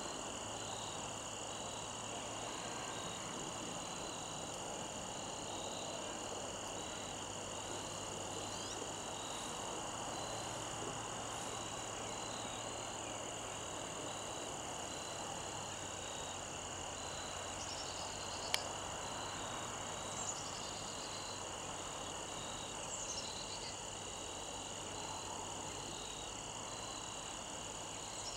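Steady chorus of crickets and other insects, a high continuous buzzing with one insect chirping in a regular pulse. A few brief falling chirps and a single sharp tick stand out over it in the second half.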